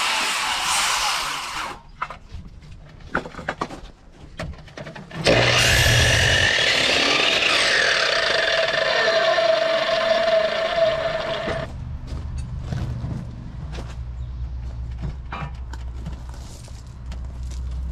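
Miter saw starting about five seconds in and cutting through a freshly milled green 2x6, running with a steady whine until it stops about seven seconds later. Before it, the end of an earlier cut dies away and the board knocks as it is handled on the saw; after it a low steady rumble remains.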